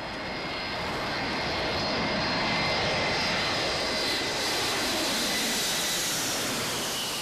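Four-engine jet airliner on approach with its gear down, passing low overhead: jet engine noise with a high whine, swelling to its loudest a few seconds in and then easing as the pitch slides down.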